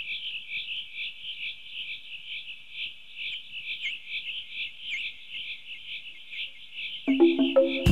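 A steady, fast-pulsing high chirping chorus of small night animals. Soft music with sustained low notes comes in about seven seconds in.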